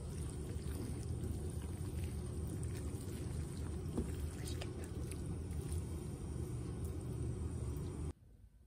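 Chopsticks stirring rice noodles into thick black bean sauce in a ceramic bowl: faint wet, sticky sounds and a few light clicks, loudest between about three and five seconds in. Underneath runs a steady low rumble that cuts off suddenly near the end.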